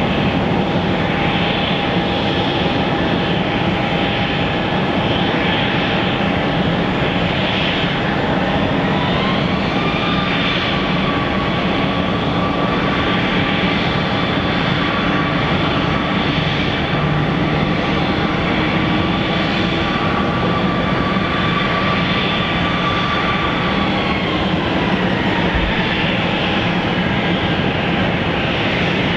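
Airliner engines running, a loud steady rush with a whine that rises in pitch about a third of the way in, holds, then falls again near the end.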